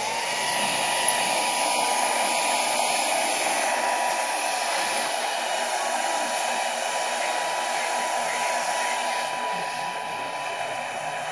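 Handheld hair dryer switched on right at the start, then blowing steadily with a steady motor whine over a rush of air as it dries a photo-emulsion silk screen.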